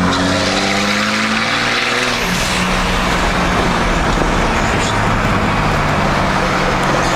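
Dodge pickup's Cummins turbo diesel engine accelerating, its pitch rising for about two seconds, then dropping about two seconds in as it shifts up, and running steadily after that with road noise.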